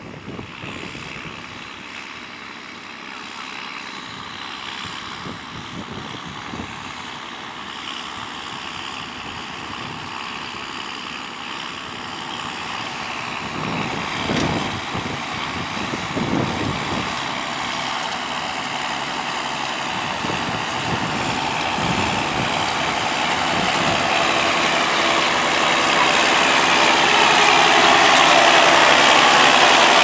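Tractor engines of a John Deere 6620 and a New Holland TM120 pulling ploughs through the field, a steady engine sound that grows steadily louder as the tractors come up close.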